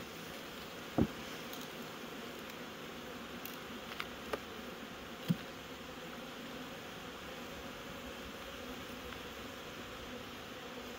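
Honeybee colony buzzing steadily in an opened hive box, with a few short, sharp knocks about a second in and again around four to five seconds in.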